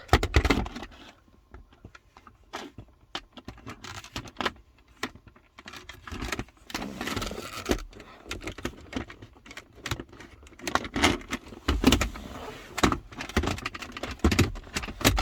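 Plastic centre-console trim being handled and fitted by hand: irregular clicks, knocks and rattles of the pieces against each other and the console.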